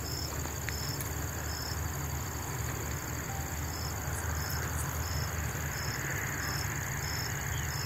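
Insects chirping: a steady high trill with a short, higher chirp repeating evenly about every two-thirds of a second.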